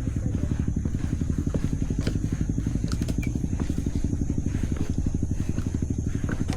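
Motorbike engine running at a steady, low speed, with evenly spaced firing pulses.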